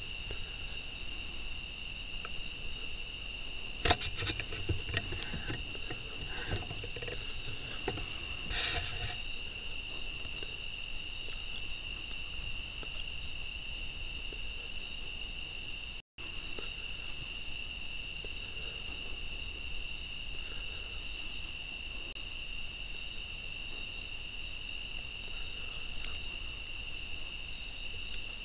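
Steady chorus of night insects, a continuous high trill. Scattered rustling and knocks come between about 4 and 9 seconds in, the loudest a sharp knock about 4 seconds in, and the sound drops out for an instant about halfway through.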